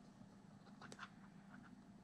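Near silence with a few faint clicks from the side buttons of a Garmin Fenix 7X Sapphire Solar watch being pressed: a quick cluster about a second in, then two more.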